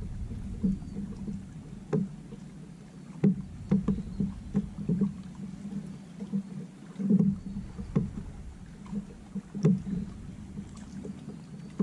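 Water lapping and knocking against a kayak hull, with irregular small bumps as the boat rocks and gear is handled.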